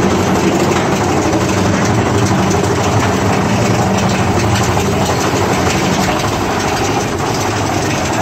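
Big Thunder Mountain Railroad mine-train roller coaster cars rolling along the track: a steady, loud rumble with a low hum under it.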